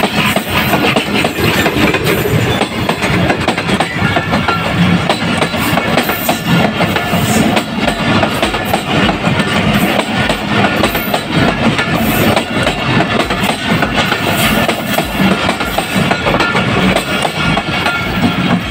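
Passenger coaches of a Pakistan Railways express train rolling past close by, steel wheels clattering steadily over the rail joints, with the last coach going by near the end.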